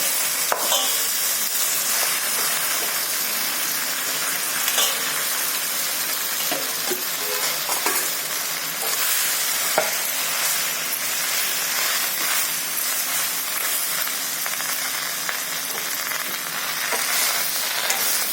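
Green chillies, cumin and fenugreek frying in hot groundnut oil, a steady sizzle, stirred in the pan with occasional clinks and knocks of the spoon.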